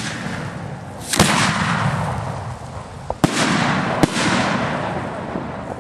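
Fireworks bursting: three sharp bangs, about a second in, about three seconds in and just after four seconds, each followed by a fading crackle.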